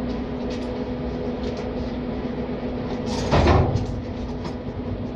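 Work noise: a steady hum with scattered light clicks, and a loud scraping clatter a little over three seconds in as cable and tools are handled.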